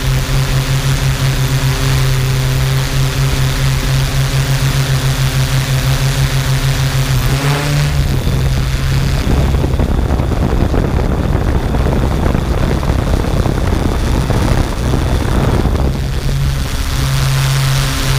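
Quadcopter drone's electric motors and propellers humming steadily close to the microphone. About seven and a half seconds in the pitch rises briefly, then the sound turns rougher and noisier for several seconds before the steady hum returns near the end.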